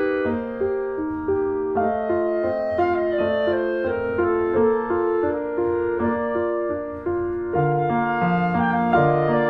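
Background instrumental music: a melody of held notes changing about every half second, with a lower part coming in near the end.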